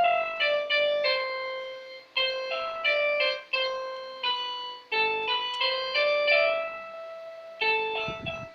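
Piano-toned keyboard playing a slow melody, one note after another, each note striking sharply and fading away.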